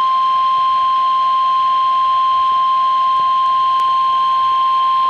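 NOAA Weather Radio warning alarm tone, a single loud, steady high-pitched tone at about 1050 Hz, sounded as the weekly test of the weather radio warning alarm.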